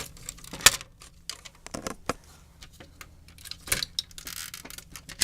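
Irregular sharp clicks and knocks of small plastic and metal parts being handled while an HP computer keyboard is taken apart, the loudest knock just under a second in, with a brief scrape about four seconds in.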